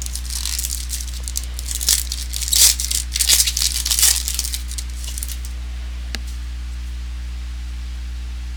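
Trading-card pack wrapper being torn open and crinkled in the hands, a run of crackling tears for about five seconds that then stops, leaving a steady low hum and a single click.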